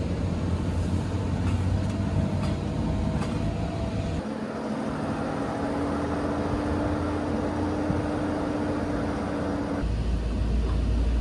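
Winnebago Revel Sprinter 4x4 van's V6 turbodiesel engine running as the van drives over beach sand: steady engine drone and rumble. The sound changes abruptly about four seconds in, when a higher steady engine tone comes in, and again near the end, when a deep rumble returns.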